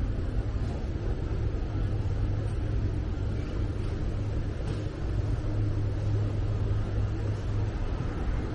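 Steady low rumble of urban background noise, with a faint hiss over it and no distinct events.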